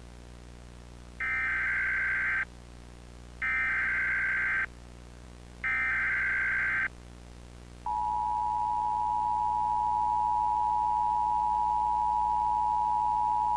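Emergency Alert System header tones: three short bursts of warbling data tones, each about a second long with about a second's gap between them. About eight seconds in, the steady two-tone EAS attention signal starts and holds.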